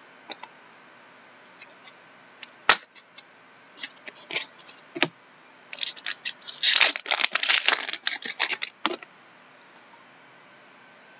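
Hands handling a stack of trading cards and their packaging: scattered clicks and rustles, with a dense crackling stretch from about six to nine seconds in.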